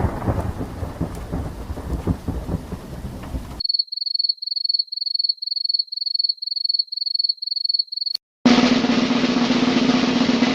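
A string of stock sound effects: thunderstorm rain and rumble, cut off suddenly after about three and a half seconds, then a rapid train of high electronic beeps at about three a second. A steady snare drum roll comes in about eight seconds in.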